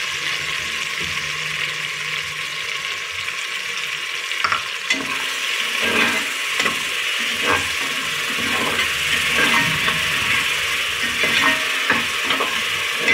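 Ground masala paste sizzling as it fries in hot oil in a pressure cooker pot, with a steel ladle scraping and clinking against the pot as it is stirred from about four seconds in.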